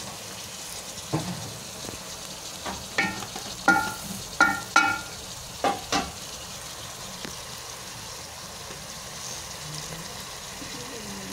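Sliced onions, tomatoes and turmeric frying in hot oil in an aluminium pot, a steady sizzle. Several short, sharp ringing clinks come between about three and six seconds in.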